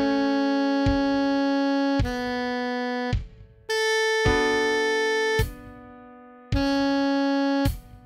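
Computer-generated playback of a melody in long held notes with chords sounding underneath. The notes stop briefly twice, one of them trailing off in a slow fade.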